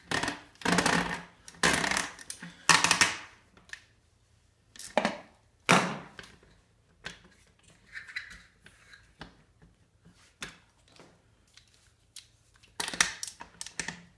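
Knocks, clatters and clicks of a Mountain Buggy stroller's plastic and metal front-fork parts being handled and fitted together by hand: a loud run of knocks in the first three seconds, two more about five to six seconds in, lighter scattered clicks, and another quick cluster near the end.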